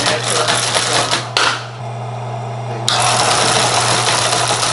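A Teletype Model 19 page printer being typed on: its mechanism clatters with the keystrokes over the steady hum of its running synchronous motor. About three seconds in, a continuous mechanical rattle starts suddenly and keeps going.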